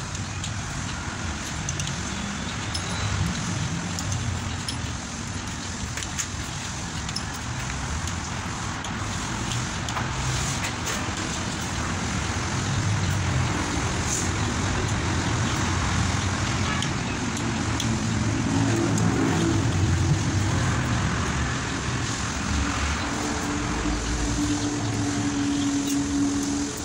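Steady road-traffic and vehicle-engine noise, with scattered light clicks of small metal engine parts being handled. A steady hum joins in for a few seconds near the end.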